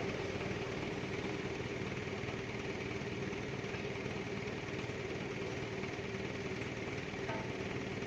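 A vehicle engine idling steadily, with a constant hum that does not change.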